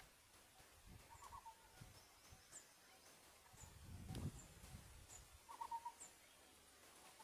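Faint birdsong: a high, short, downward chirp repeating about once a second, with a brief trilled call about a second in and another near the end. A low rumble swells and fades about four seconds in.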